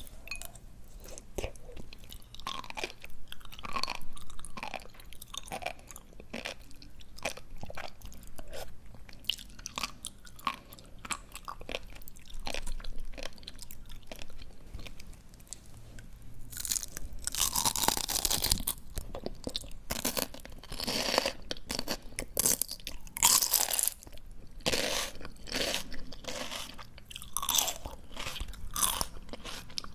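Close-miked chewing of crisp raw greens: quick wet crunches and pops, loudest in bursts a little past the middle.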